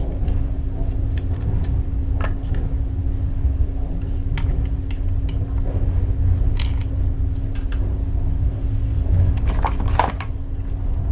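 A steady low rumble with a constant hum, over which come scattered light clicks and taps of small hard parts being handled, several together near the end.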